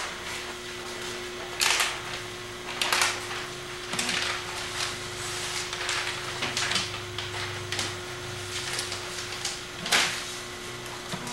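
Newspaper pages rustling and being turned in short bursts every second or two, over a steady electrical hum.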